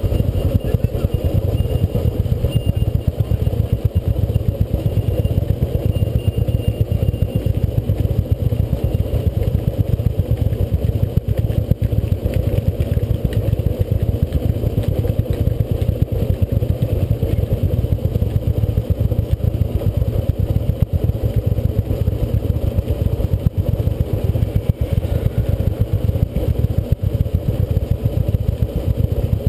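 Royal Enfield Bullet single-cylinder motorcycle engine idling steadily, an even, rapid pulsing of the exhaust that doesn't change.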